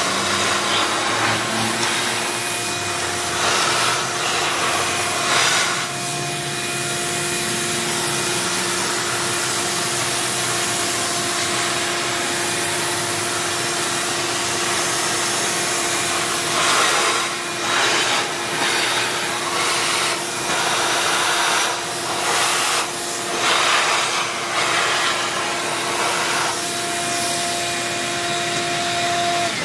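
Vacuum cleaner running, sucking rust flakes and dirt from around a fuel tank's sending-unit opening, with its steady motor whine. Several louder rasping surges come as the nozzle scrapes and picks up debris, and the motor cuts off at the very end.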